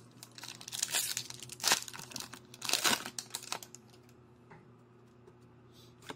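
Foil booster-pack wrapper crinkling and being torn open, a run of loud crackles and rips lasting about three seconds, followed by a few faint ticks.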